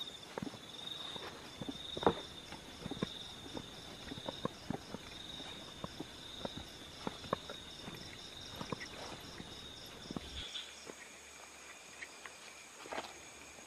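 Footsteps walking over grass and a forest path, irregular soft knocks, over a steady pulsing high trill of night insects. About ten seconds in, the insect sound changes to a different steady high note.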